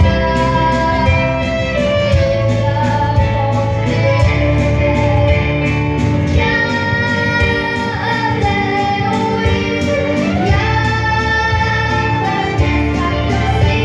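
A young girl singing a song into a microphone, backed by a live band with piano, acoustic guitar and drums keeping a steady beat.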